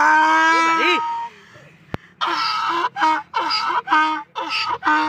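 Donkey braying: a long drawn-out opening call, then a rapid run of repeated hee-haw cycles, about two a second.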